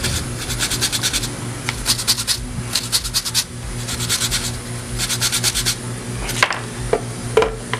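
Stiff-bristled brush scrubbing a laptop LCD's circuit board in quick back-and-forth strokes, cleaning off flux after soldering. The scrubbing comes in about six bursts of half a second to a second, with short pauses, and stops about six seconds in, leaving a few light clicks over a steady low hum.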